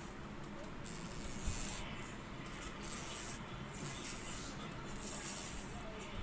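Homemade PVC-pipe mini grinder running, with a thin metal strip held against its wheel: a grinding hiss that comes and goes several times as the strip touches and lifts off.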